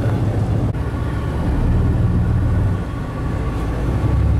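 A party fishing boat's engines running with a steady deep drone as the boat comes in to the dock.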